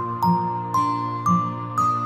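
Instrumental lullaby music: a simple melody of ringing notes, about two a second, that dips and then climbs step by step over soft sustained low notes.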